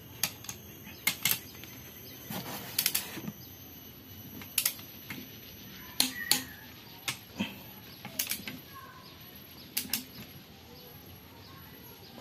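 Irregular sharp metallic clicks of a wrench tightening the crankshaft main bearing bolts on a Chery SQR484 aluminium engine block, with a quick run of clicks about two and a half seconds in.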